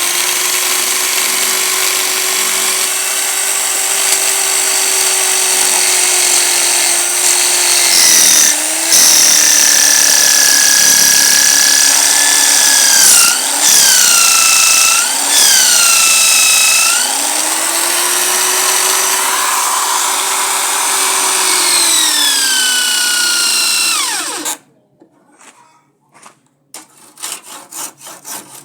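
Electric power tool cutting wood: the motor runs with a steady high whine that sags in pitch several times as the cutter bites into the wood, then recovers. About three-quarters of the way through it is switched off and winds down with a falling whine, followed by a few faint knocks.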